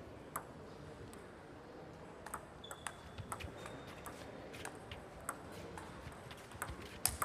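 Table tennis ball clicking off bats and the table in a doubles rally, with a single click about half a second in, then a quick run of hits about two or three a second from about two seconds in until the end.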